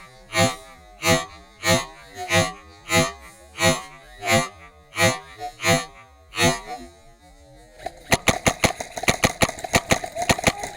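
Background music with a steady beat about every two-thirds of a second; after a brief lull about seven seconds in, a faster, busier rhythm starts over a held tone.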